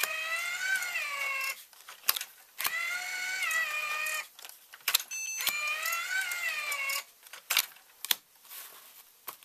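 CTD-200 series card dispenser mechanism feeding out cards one at a time: its motor whines in three runs of about a second and a half each, wavering a little in pitch, with sharp clicks between runs as each card is pushed out.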